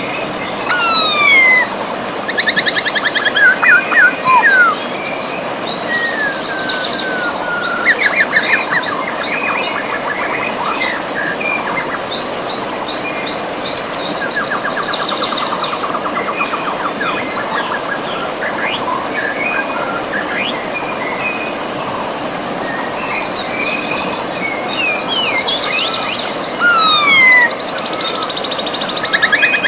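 River water rushing steadily, with several birds singing over it: rapid trills, fast runs of repeated notes and falling whistles, busiest near the start and the end.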